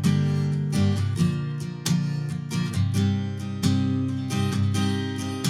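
Acoustic guitar strummed in a steady rhythm, the chords changing about every second, with no singing.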